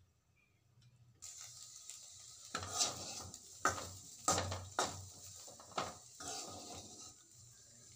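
Cauliflower fry being stirred in an aluminium kadai: a metal spatula scrapes and knocks against the pan about six times in the middle of the clip. Underneath is a steady frying hiss that comes in about a second in.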